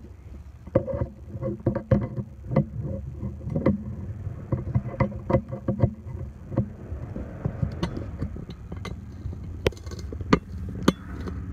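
Irregular clicks and knocks of RAM mount parts being handled and pressed together as a socket arm is worked onto its ball base on a motorcycle handlebar, over a steady low rumble.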